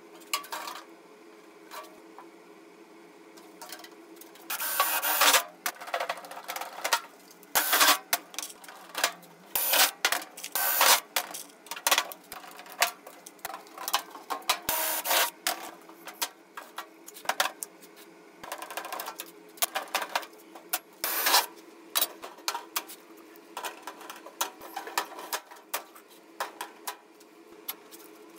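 Sheet-metal parts and hand tools handled against a large tin can and a steel work table: irregular knocks, clinks and scrapes, with several longer scrapes spread through, over a steady low hum.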